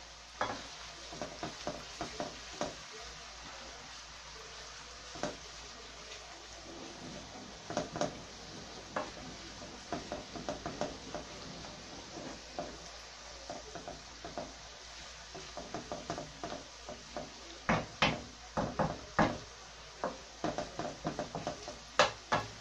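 Wooden spoon knocking and scraping around a non-stick frying pan while stirring chopped onions softening in oil, with a faint sizzle underneath. The knocks are irregular and come thickest near the end.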